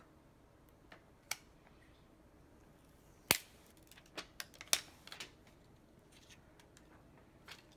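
Scattered clicks and taps from handling an iPhone 7 and its packaging during unboxing. The sharpest click comes about three seconds in, and a quick run of smaller clicks follows a second or two later.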